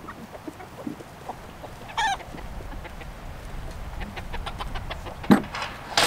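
Chickens clucking, with one short falling call about two seconds in and a sharp knock near the end.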